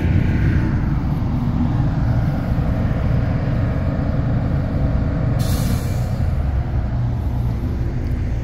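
A towboat's diesel engine running steadily with a deep drone. There is a short hiss about five and a half seconds in.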